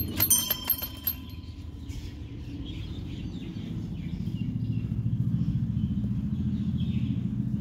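Small hanging brass temple bell with a heart-shaped leaf clapper, flicked by hand so that it rings several quick times in the first second. After that comes a steady low rumble that grows louder from about three seconds in.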